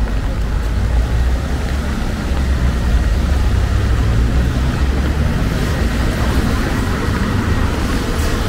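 Street traffic on a rainy day: vehicles driving past on a wet road over a steady low rumble.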